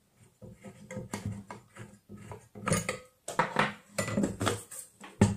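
Metal tool clatter: an open-end wrench clinking and scraping against the bolts and steel bracket on the angle grinder's head as the grinder is unbolted from its mount on a steel pot. Irregular clicks and scrapes grow busier in the second half, with one sharp metallic knock near the end.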